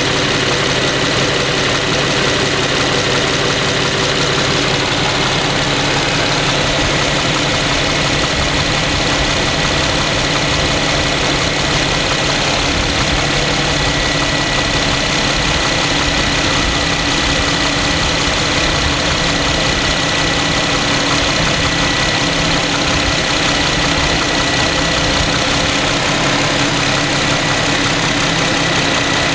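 Infiniti Q70's 3.7-litre V6 (VQ37VHR with VVEL) idling steadily after a cold start and some warm-up, with a ticking and tapping that the owner takes to be normal and inherent in this engine.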